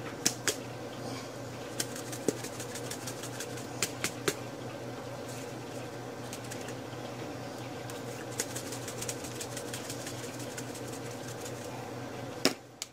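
Seasoning jar shaken over a plate of fried chicken wings as lemon pepper is sprinkled on: scattered light ticks and taps, with a sharper knock near the end, over a steady background hum.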